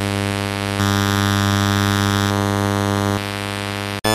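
Electronic humming sound effect standing for the strange object's inner hum in a radio drama: a steady low buzz with a rasping, many-toned edge. It gets louder about a second in, drops back a little after three seconds, and cuts off suddenly near the end.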